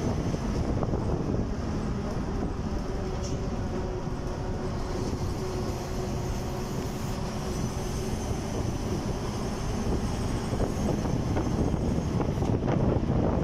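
Steady rumble of a vehicle driving along a road: engine and road noise with wind on the microphone, with no clear change.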